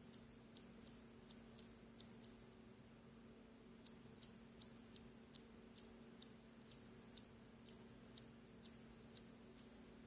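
Turn-signal flasher relay clicking evenly, about three faint clicks a second, as it switches the turn-signal circuit on and off. The clicking stops for about a second and a half about two seconds in, then starts again.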